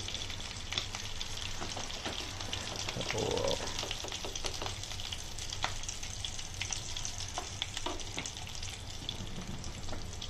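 Beetroot vegetable cutlets shallow-frying in hot oil in a nonstick pan: a steady sizzle with fine crackling throughout, as the outer layer crisps. The wooden and steel spatulas lift the cutlets out of the oil.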